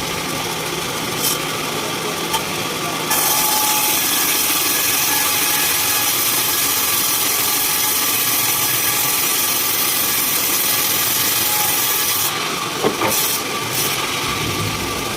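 Sawmill with its engine running steadily. From about three seconds in to about twelve seconds its blade saws through a log, adding a loud, high hiss. A few sharp knocks come near the start and again near the end.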